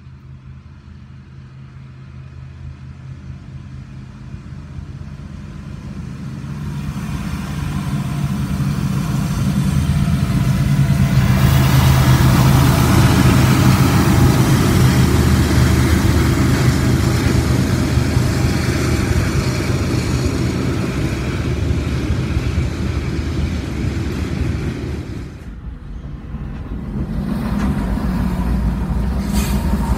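Norfolk Southern diesel freight locomotives passing close by. The engines' low drone builds over several seconds to a loud peak, with steady low engine tones under the rumble of wheels on rail. Near the end the sound breaks off and another locomotive is heard passing.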